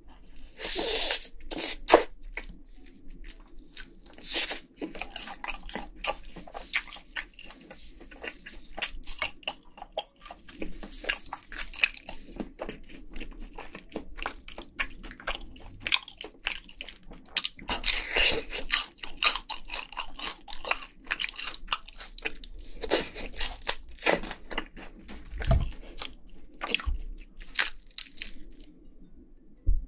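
Crunching and chewing of crispy sauce-glazed Korean fried chicken: a continuous irregular run of crackling bites and chews, with louder crunches now and then.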